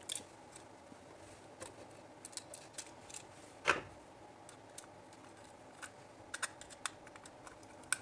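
Light scattered clicks and small scrapes of a screwdriver working the brass terminal screws of a plastic switch board while a wire is fitted, with one sharper click about three and a half seconds in.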